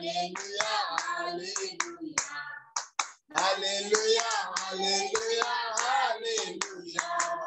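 A small group singing a worship song with rhythmic hand-clapping, heard over a video call. The singing breaks off briefly about two and a half seconds in, then resumes.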